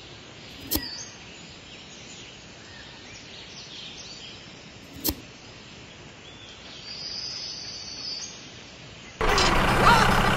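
Birds chirping in the background, with two sharp clicks, one about a second in and one about five seconds in. Near the end, much louder music cuts in suddenly.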